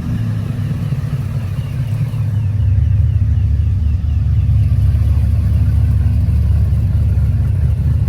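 Holden VK Commodore engine and exhaust running with a loud, deep, low note that swells about two and a half seconds in and then holds steady. The car is loud enough to set off nearby car alarms.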